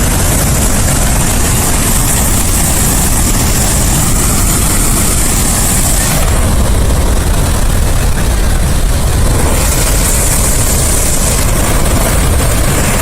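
Loud, steady rush and low rumble of floodwater gushing from Summersville Dam's outlet during a high-volume flood release.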